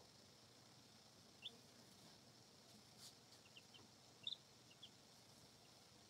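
Faint peeps from baby chicks: a handful of short, high chirps scattered through, the loudest about four seconds in, with a faint click about three seconds in.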